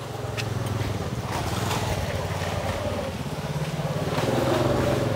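A small engine running steadily with an even beat, growing a little louder and higher about four seconds in.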